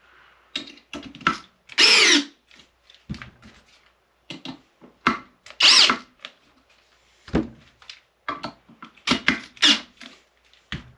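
Cordless drill driver run in short, irregular squeezes of the trigger, the motor briefly spinning up and down in pitch several times, with clicks and knocks between.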